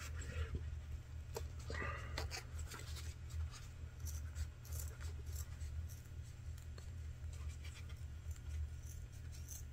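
Scissors cutting leather: a scatter of faint short snips and scratchy rustles as the edge is trimmed, over a steady low hum.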